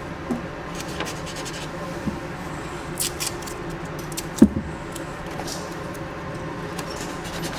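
Low rubbing and scraping handling noise with scattered light clicks and one sharp knock about four and a half seconds in.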